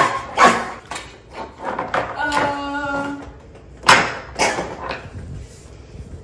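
Toy dinosaur skeleton knocking against a tabletop: two sharp knocks about half a second apart at the start and two more about four seconds in, with a short held voice sound in between.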